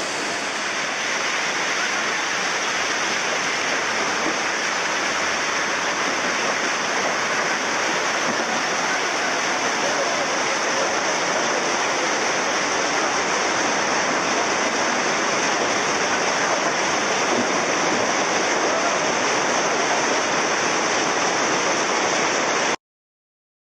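Steady rushing of a fast mountain river tumbling over rocks, which cuts off suddenly near the end.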